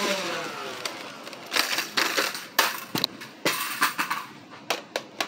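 The motorized flywheels of a Nerf Rival Zeus blaster spin down with a falling whine over about the first second. After that comes an irregular series of sharp clicks and light knocks: the blaster being handled, and balls or a bottle knocking about.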